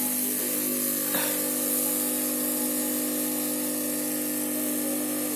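Hot-air rework station blowing steadily, a hum with a constant hiss of air, heating all around a component on a motherboard. A faint tick about a second in.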